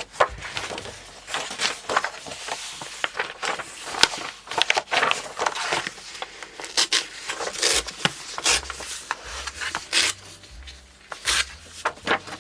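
Sheets of paper being handled: rustling and sliding, with many short crinkles and sharp taps.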